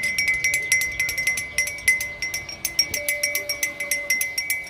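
Metal cattle bell ringing as it is shaken, its clapper striking rapidly and irregularly, several strikes a second, each ringing at the same high pitch.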